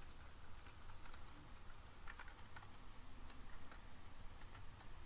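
Faint, scattered keystrokes on a computer keyboard as new parameter values are typed in, over a low steady hum.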